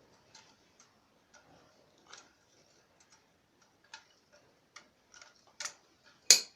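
Irregular light clicks and taps of metal parts and tools being handled during work on a tiller, growing louder towards the end, with one sharp knock near the end.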